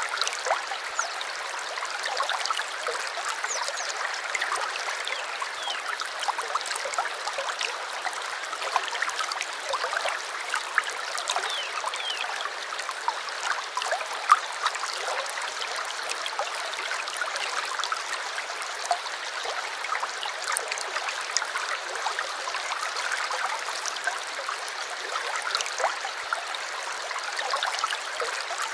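Small stream running steadily, trickling and gurgling, with many small splashes.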